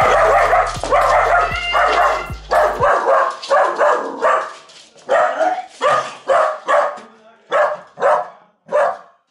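A man retching and gagging over a toilet after swallowing a raw fish eye and cat food with mayonnaise: short throaty heaves, about two a second, fading toward the end. During the first three seconds there is loud rushing movement noise as he runs to the bathroom.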